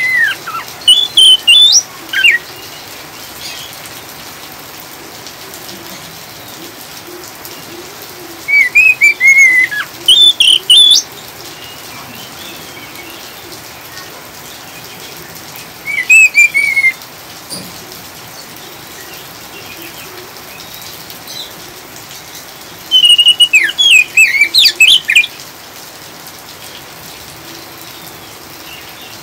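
Oriental magpie-robin (kacer) giving four short bouts of loud, quick chattering 'ngriwik' calls over a steady hiss of falling rain.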